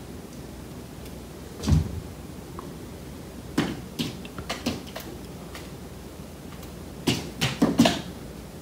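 Pets' feet and claws clicking and knocking on a hardwood floor. There is one heavier thump a little under two seconds in, a few scattered clicks around the middle, and a quick run of clicks near the end.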